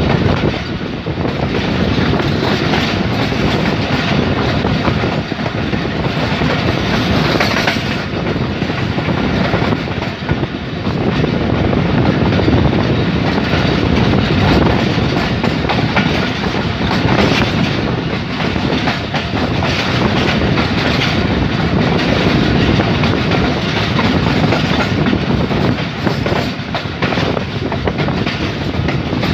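Pakistan Railways passenger express coaches passing close by: a loud, steady rumble of wheels on rail with a continuous clatter of wheels over rail joints.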